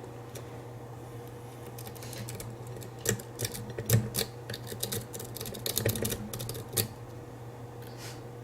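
A Medusa rake pick working the pins of a spool-pinned challenge lock under tension, making a run of quick, irregular metallic clicks and ticks from about two seconds in until about seven seconds in. A steady low hum runs underneath.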